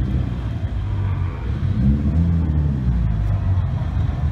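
Lowered car's engine running as it drives slowly out, with a short rev rising and falling about two seconds in.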